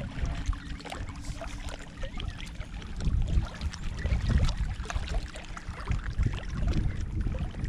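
A low, gusty rumble of wind and lapping water, with scattered light clicks.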